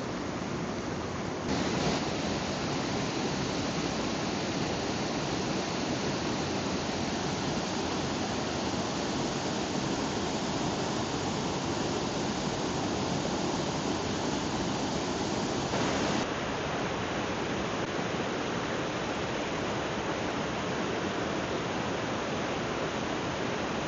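Waterfall: rushing, splashing water making a steady, full roar. The sound changes abruptly twice, about a second and a half in and again about 16 seconds in, becoming slightly louder and brighter, then duller, as the recording cuts between falls.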